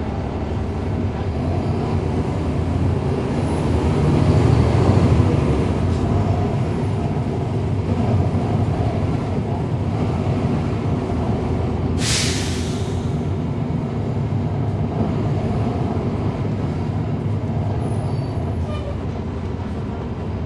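Cummins ISL9 diesel engine of a NABI 40-foot transit bus running under way, heard from the rear seat with the radiator fan on; the engine swells louder about four to five seconds in, then settles. About twelve seconds in comes a short, sharp burst of compressed-air hiss from the bus's air system.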